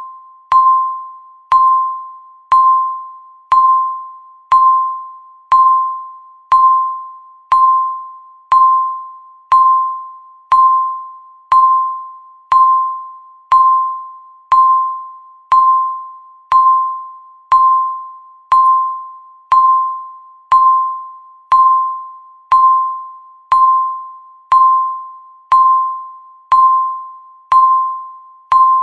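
Countdown timer's electronic beep, one short tone per second, each starting sharply and fading away.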